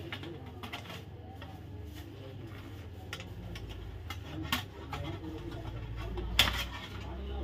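Light metallic clicks and scrapes as a screwdriver works a steel strip loose on a room heater's sheet-metal reflector, with one sharper clink a little after six seconds in. A low steady hum runs underneath.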